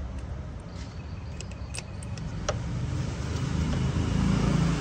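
A vehicle engine running steadily as a low rumble, growing louder toward the end, with a few light clicks about two seconds in.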